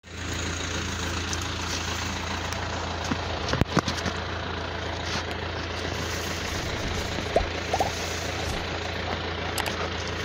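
A vehicle engine idling steadily with a low hum. A few sharp knocks come a little over three seconds in, and two brief rising squeaks come a little past the middle.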